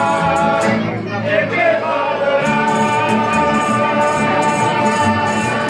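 Spanish tuna song: men singing loudly in chorus, one voice holding a long note in the second half, over strummed and plucked bandurrias, lutes and guitar with an accordion.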